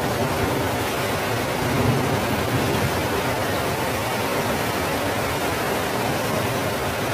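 Flash-flood torrent of muddy water rushing down a street, a steady loud rush of water with no let-up.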